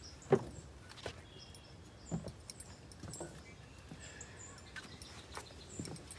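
A few scattered knocks and footsteps on wooden dock boards, the sharpest about a third of a second in, over faint bird chirps.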